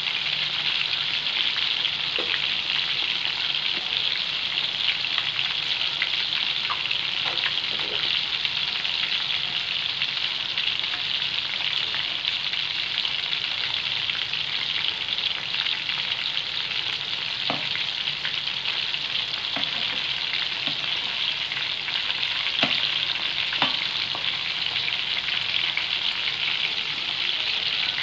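Marinated prawns frying in hot oil in a pan: a steady sizzle, with a few short sharp clicks standing out here and there. They are being fried until they turn red.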